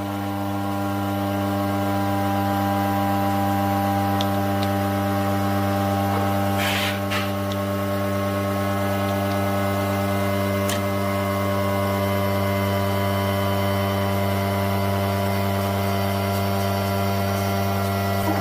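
Woodturning lathe's electric motor running with a steady hum; a brief scraping rasp about seven seconds in.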